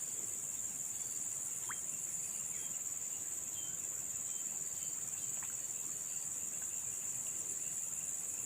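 Steady, high-pitched drone of insects such as crickets, with one faint short rising chirp about two seconds in.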